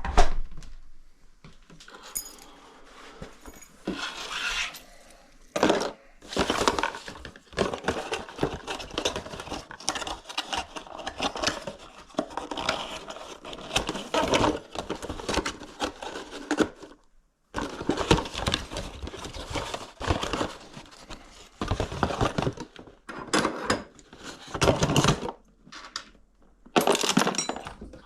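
Small metal objects clinking and rattling in irregular spells of handling, with short pauses between.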